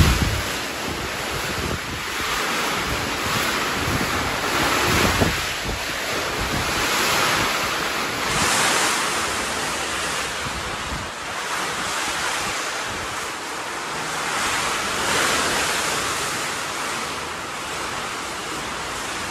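Steady rushing noise that swells and eases every few seconds.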